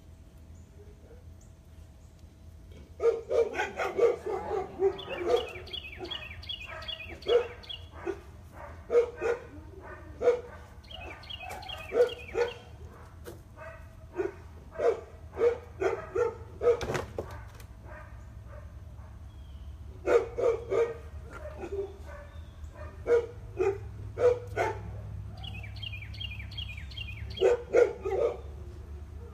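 A dog barking in bouts of short, sharp barks, some in quick strings, starting about three seconds in, with a break of a couple of seconds near the middle.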